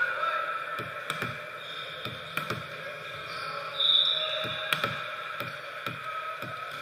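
A ball bouncing again and again on a hardwood gym floor, a string of dull thumps about two a second. A short, shrill referee's whistle blast comes about four seconds in, over a low murmur of gym voices.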